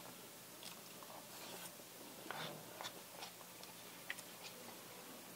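A person chewing fried rice close to a clip-on microphone: faint, irregular mouth clicks and smacks.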